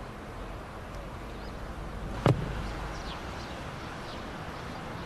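A single thump of a football being kicked, about two seconds in, over quiet open-air ambience with a few faint bird chirps.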